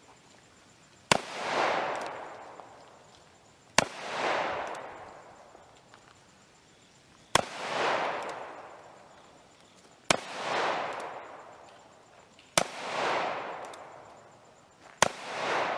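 Ruger Vaquero single-action revolver in .45 Long Colt fired six times, one shot every two and a half to three and a half seconds. Each sharp report is followed by a long rolling echo that swells and then fades.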